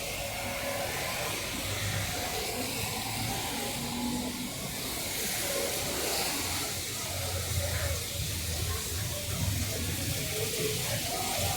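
Steady hiss of heavy rain falling on a street, over a low rumble of traffic.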